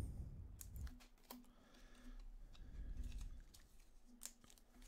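Faint, scattered clicks and light taps of glossy trading cards being handled and shuffled by hand.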